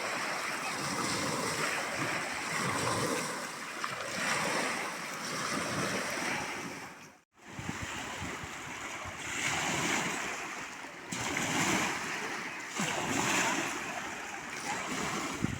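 Waves washing onto a shore with wind buffeting the microphone, swelling and easing every second or two; the sound cuts out abruptly for a moment about seven seconds in, then resumes.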